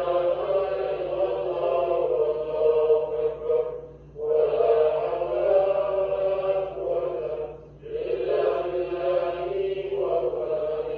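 Voices chanting dhikr together, a recitation of the names of God. It comes in phrases of about four seconds, with a short break for breath between them.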